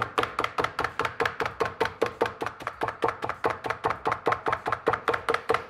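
Handheld blade meat tenderizer punched rapidly and evenly into a mule deer steak on a wooden cutting board, about six sharp strokes a second.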